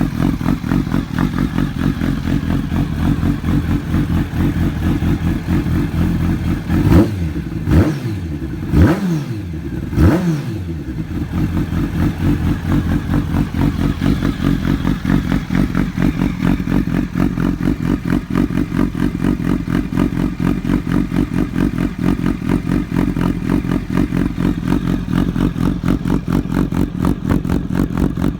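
Kawasaki ZX-12R's inline-four idling loudly through a conical titanium aftermarket silencer and titanium header. About seven seconds in the throttle is blipped four times in quick succession, each rev rising and dropping sharply, then the engine settles back to a steady idle.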